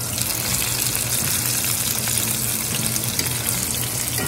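Breaded chicken breasts frying in hot oil in a cast-iron skillet: a steady sizzle.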